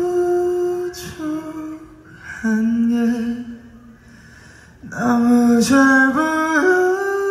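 Live singing into a microphone in long, held notes, with a short pause about halfway through. Near the end the voice climbs in short steps.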